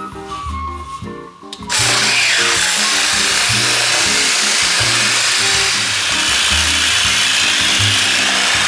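Pneumatic air file sanding fiberglass body filler, starting suddenly about two seconds in and then running at a steady, even pitch, with background music underneath.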